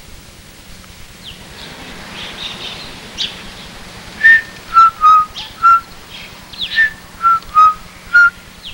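A whistled melody in short, separate notes, about two a second, starting about four seconds in after a stretch of faint hiss.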